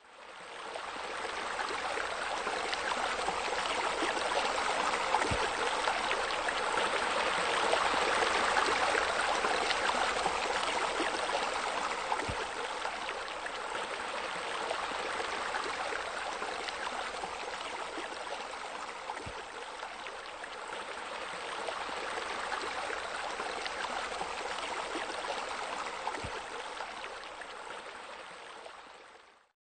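Steady rush of flowing water, fading in at the start and out near the end.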